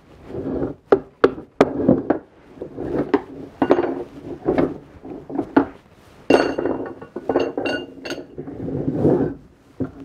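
Metal rods being pulled out of a wooden beehive frame-assembly jig: a string of wooden knocks and scrapes as the frames shift. A little past halfway come several sharp metallic clinks with a ringing tone as the rods are handled and laid down.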